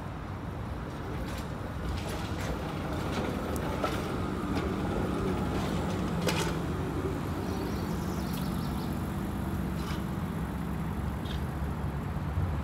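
TTC CLRV streetcar passing on the curved loop track: a steady low rumble that grows louder a couple of seconds in and peaks as the car goes by, with scattered sharp clicks from the wheels on the rails.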